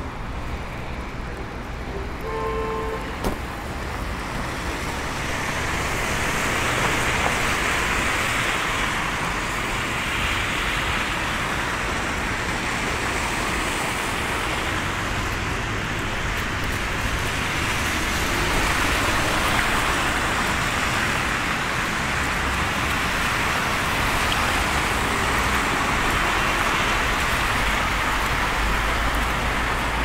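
City traffic on a slushy street: car tyres hissing on wet snow as vehicles pass, rising and falling in slow swells. A short beep sounds about two seconds in.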